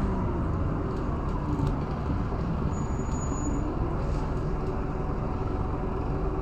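Scania DC9 five-cylinder diesel of a Scania K230UB single-deck bus, heard from inside the passenger saloon, settling to a steady idle as the bus comes to a halt at a red light.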